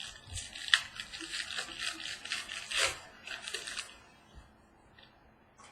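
Crinkling and rustling of a foil trading-card pack being torn open and its cards handled, with quick rapid crackles for about four seconds, then stopping.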